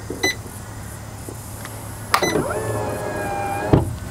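Electric caravan entry step retracting. A click near the start, then about two seconds in its motor whines for under two seconds as the step draws in, ending in a clunk as it closes.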